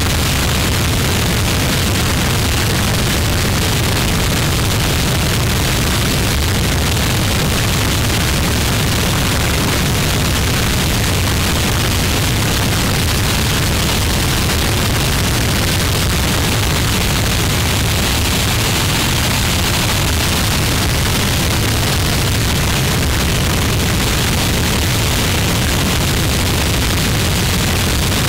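Harsh noise recording: a dense, unchanging wall of distorted static with a heavy low rumble beneath a hiss, with no rhythm or breaks.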